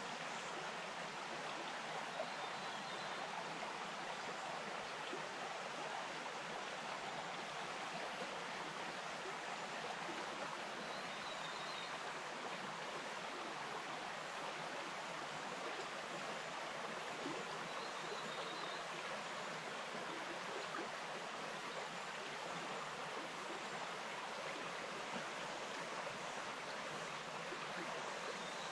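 Bush stream flowing over stones, a steady, even rush of running water.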